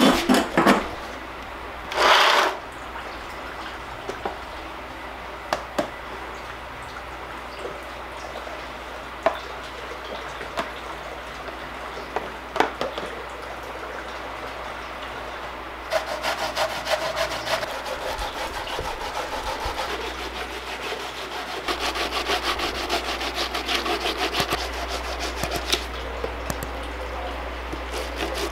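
Raw cassava root grated by hand against a punched tin-sheet grater: a few knocks and a short scrape in the first seconds, then from about halfway a long run of rapid rasping strokes.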